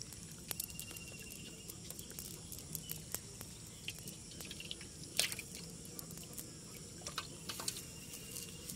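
Irregular soft crackles and clicks from a wet cast net and water weeds being handled by hand, with a sharper click about five seconds in.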